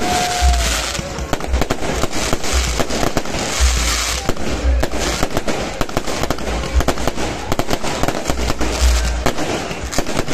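Aerial fireworks going off continuously: a dense rapid run of sharp bangs and crackles over repeated deep booms.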